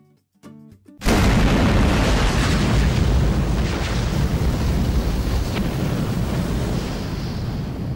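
A few short plucked guitar notes, then about a second in a sudden loud fireball explosion sound effect that carries on as a long, rumbling rush of flame and slowly fades near the end.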